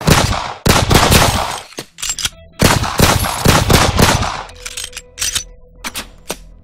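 Rapid gunfire that starts suddenly and loudly, in dense bursts of shots, thinning to a few scattered single shots over the last two seconds.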